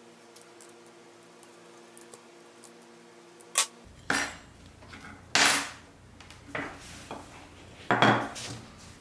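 Metal parts of a carpenter's square being taken apart, its brass strip and a screwdriver among them, clinking and clattering against each other and the workbench. A few faint ticks come first, then about five sharp clinks in the second half.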